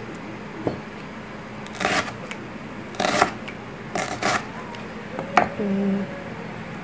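Kitchen knife cutting through a red onion against a plastic cutting board: a handful of sharp cuts roughly a second apart.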